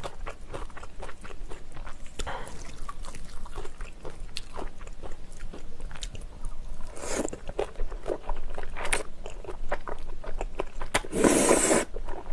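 Close-miked mouth sounds of eating jjajangmyeon, wheat noodles in black bean sauce: sticky, wet chewing clicks throughout, a short slurp about seven seconds in and a longer, louder slurp of noodles near the end.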